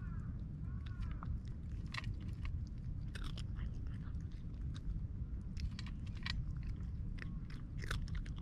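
A cat crunching dry kibble from a steel bowl, in irregular crisp crunches.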